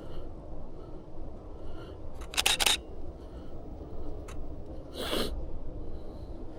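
DSLR shutter firing: a quick run of clicks about two and a half seconds in, then a single click, then another about five seconds in.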